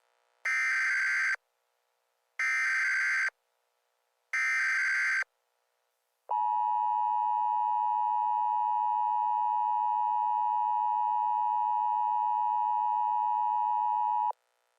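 Three one-second bursts of EAS SAME header data, the screechy digital warble that opens an Emergency Alert System message, evenly spaced about two seconds apart. These are followed by the EAS attention signal, a steady two-tone sound near 1 kHz that holds for about eight seconds and stops abruptly.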